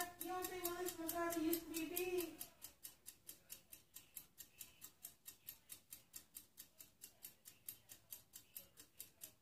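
Steady rapid clockwork ticking, about four ticks a second. For the first two seconds or so a voice holds drawn-out, wavering notes over it.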